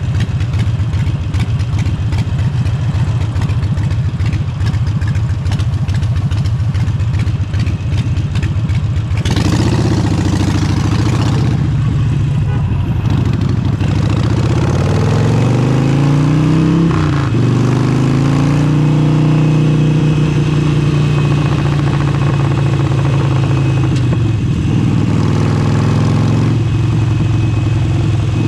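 Harley-Davidson Forty-Eight's air-cooled 1200 cc V-twin with an aftermarket exhaust, idling with a rapid, even beat for about nine seconds. It then pulls away, its note climbing and dropping back through the gear changes, and settles into a steady cruising note.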